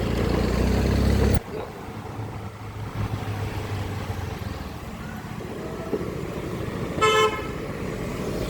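A low vehicle rumble that cuts off abruptly about a second and a half in, then quieter road noise, and one short vehicle horn toot near the end.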